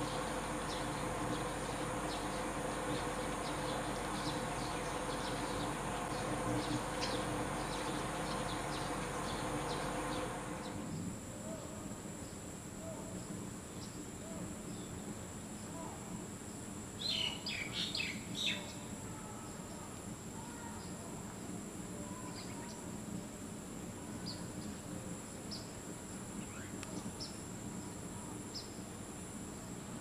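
Outdoor ambience of a steady, high insect drone with scattered short chirps. The background changes abruptly about a third of the way in. A little past halfway comes a brief, louder burst of bird chirps, and a few single high notes follow near the end.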